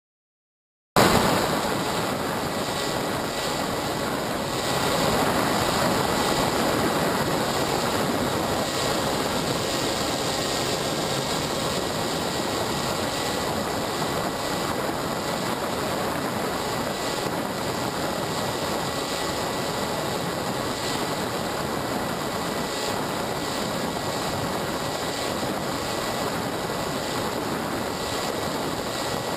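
Steady whir of a small radio-controlled aircraft's electric motors and propellers, heard from on board, with a thin steady whine running through it. It starts suddenly about a second in.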